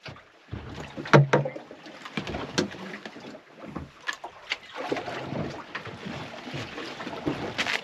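Fishing boat at sea: wash of water and wind with irregular knocks and clunks, the loudest about a second in.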